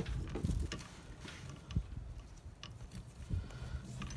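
Irregular light taps and rustles of white electrical cable being pulled through a hole in a wooden cabinet wall, the cable rubbing and knocking against the wood.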